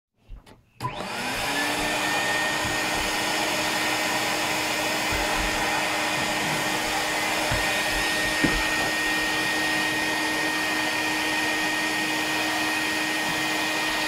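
Filter Queen canister vacuum cleaner switched on about a second in, its motor whine rising to speed, then running steadily with a hum and a high whistle. A single knock about eight and a half seconds in.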